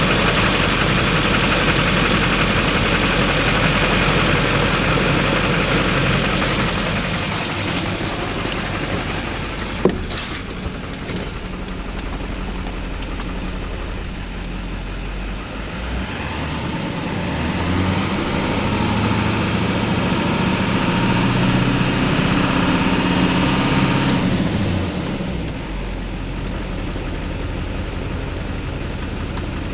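Duramax LLY 6.6-litre V8 turbo-diesel idling rough, with a shaking idle. About midway it is held at a little throttle for several seconds, running louder and steadier, then drops back to idle near the end. A single sharp click about a third of the way in.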